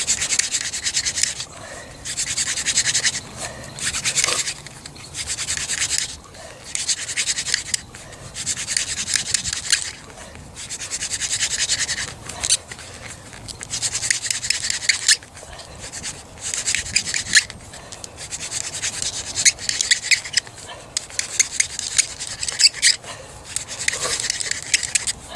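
Goldenrod hand-drill spindle spun between the palms in a basswood hearth board, a hissing, scraping rub in regular strokes of about a second each with short breaks between, about one stroke every two seconds. The friction is blackening the wood dust and bringing it to smoke, building toward an ember.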